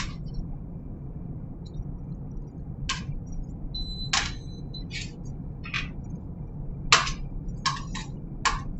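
Metal kitchen tongs clicking and clinking against a metal sheet pan as roasted squash halves are turned over. There are about eight sharp, separate clinks, one with a brief ringing tone about four seconds in and the loudest late on, over a steady low hum.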